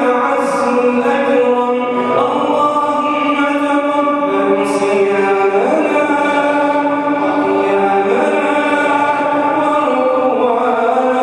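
An imam chanting an Arabic supplication (du'a) in long held notes over the mosque's microphone and loudspeakers, with the congregation's voices joining in like a choir.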